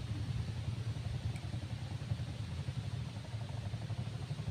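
Steady low rumble of an engine running at an even speed, with no change in pitch.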